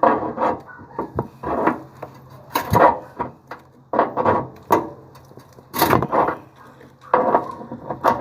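Irregular knocks and scraping or rubbing noises, some a second or so long, over a faint steady low hum.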